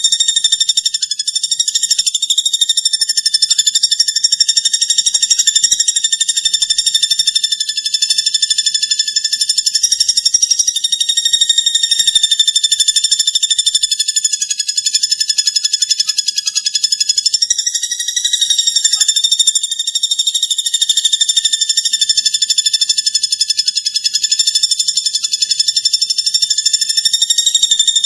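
Platuk bawang bird song: a continuous, high, rapid trill, steady in pitch, with a brief wobble about two-thirds of the way through.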